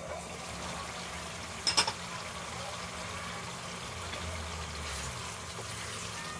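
Glass pan lid lifted off a pan of simmering mince curry and set down with a sharp clink about two seconds in, over the steady bubbling of the curry. A spatula starts stirring the curry near the end.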